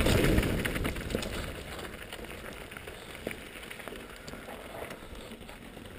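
Downhill mountain bike rolling over a rocky gravel trail, heard from a helmet-mounted GoPro: a loud rumble and rattle of tyres and bike over rocks at first, easing after a second or two into a quieter crunch of gravel with scattered clicks.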